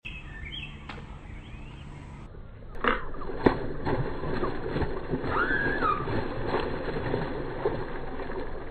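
Outdoor background noise with a steady low rumble, two sharp clicks about three seconds in, fainter ticks later, and a short whistled call in the middle.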